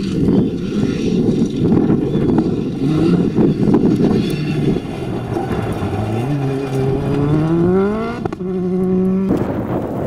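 Opel Adam R2 rally car's four-cylinder engine at high revs on gravel, with the rough rumble of tyres and thrown stones under it. About six seconds in, the engine note climbs steadily as the car accelerates, holds one steady note for about a second, then gives way to wind noise on the microphone near the end.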